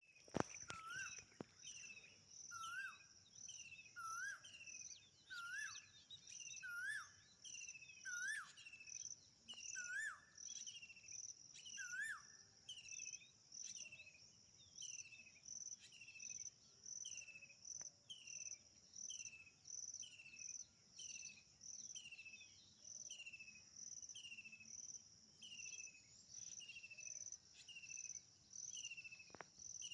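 Morning birds and insects: a steady high insect trill and a short downward-sliding call repeated about every 0.7 s. A second, lower rising call repeats about every 1.4 s and stops about 12 s in.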